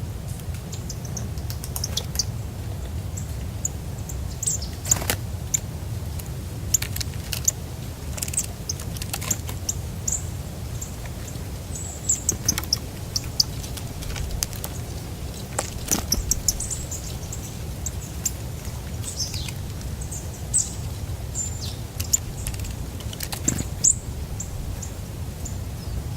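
Small songbirds at a winter feeder giving short, high chirps scattered throughout, with a few sharp taps, over a steady low rumble.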